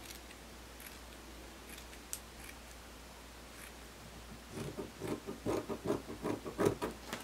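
Scissors cutting through a fabric strip: a few faint snips, then from about halfway a quick run of louder snips, roughly five a second.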